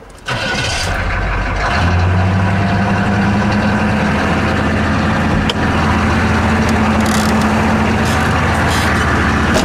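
GM 6.2 L diesel V8 cranking for about a second and a half, then catching and settling into a steady fast idle. The fast idle is set too high, at about 1400 rpm, and needs turning down. Heard from inside the cab.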